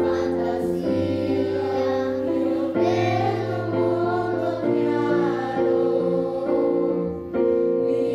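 A choir with children's voices singing over a sustained accompaniment with a steady bass line; new phrases begin about three seconds in and again near the end.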